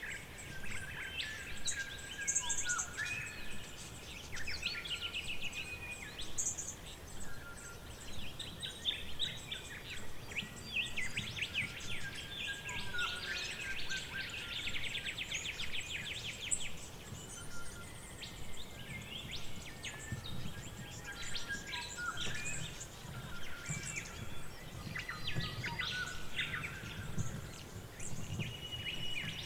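Forest ambience of several songbirds chirping and singing in overlapping calls, with a rapid trill about halfway through, over a low steady rumble.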